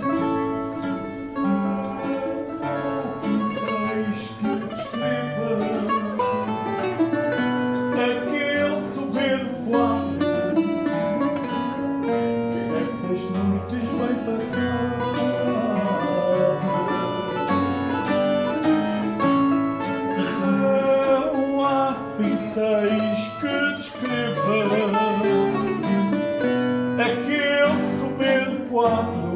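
A man's voice singing fado, accompanied by plucked guitars.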